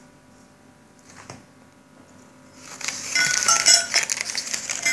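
Crumpled packing paper rustling and crinkling as it is lifted out of a metal pot, with light metallic clinks; it starts about two and a half seconds in, after a stretch of quiet with one small click.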